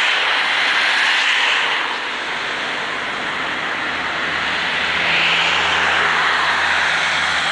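Road traffic passing close by: the steady tyre and engine noise of cars and heavy vehicles, swelling and easing as they go past. A low engine hum joins about four seconds in.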